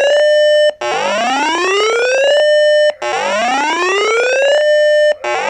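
Electronic siren-style emergency alert tone: a whoop that rises in pitch for about a second and a half, holds briefly at the top, then cuts off, repeating about every two seconds. It is the alarm announcing a newly issued severe thunderstorm warning.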